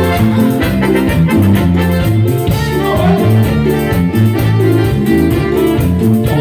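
Live band playing dance music: a keyboard melody over a steady, stepping bass line and an electronic drum kit, with a metal güiro scraped in rhythm.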